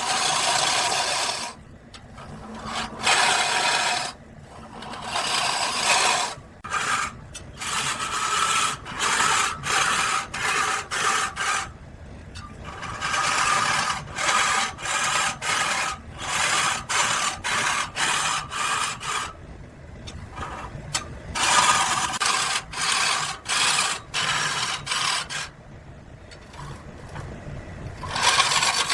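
Repeated rasping, scraping strokes of a tool working wood. The strokes come as separate bursts, longer at first, then short and quick at about one to two a second through the middle, then longer again near the end.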